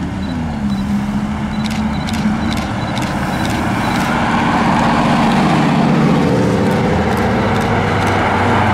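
A Lamborghini Huracán's V10 and then a Ferrari 458's V8 running at low revs as the cars pull slowly past, the engine note swelling louder as they come by. A few light clicks sound in the first few seconds.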